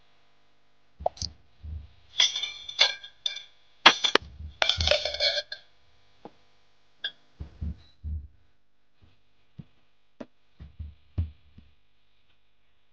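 A steel ladle clanking and scraping against an aluminium cooking pot, in clusters of ringing metal knocks about two and five seconds in, then lighter, scattered knocks and taps as a steel plate is set on the pot as a lid.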